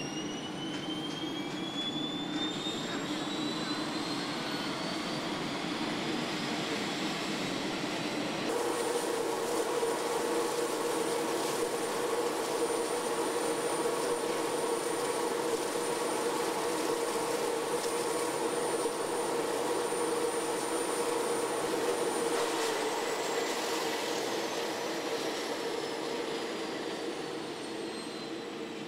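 Boeing 787's auxiliary power unit, a small gas turbine in the tail, spooling up: a whine rises in pitch over the first eight seconds, then settles into a steady high whine over a lower hum. About 22 seconds in, the high whine begins to fall in pitch.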